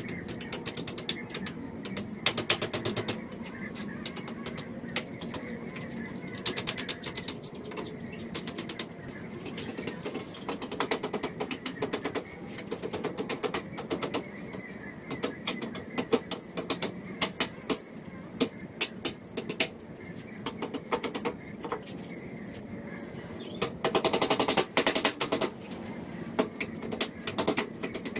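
Hammering on pallet wood: rapid runs of sharp knocks and clicks, many a second, coming in bursts, with the loudest runs about two and a half seconds in and near the end.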